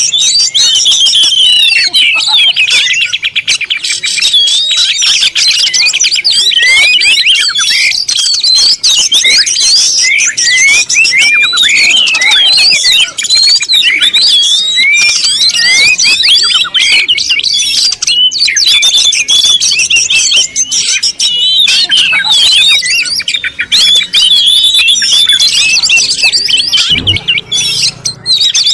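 A dense chorus of many small birds chirping and calling at once, a continuous overlapping mass of short, quick chirps with no pause.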